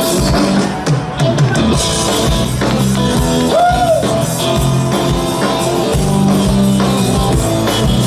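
Rock band playing live through a PA: drum kit, electric guitars and keyboard, with steady drum hits.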